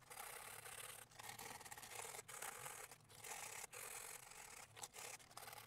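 Coarse 40-grit sandpaper rubbed by hand inside the damaged headset bearing seat of a carbon bicycle frame, roughing up the surface so epoxy will grip it. A faint scratchy hiss in strokes, broken by short pauses about once a second.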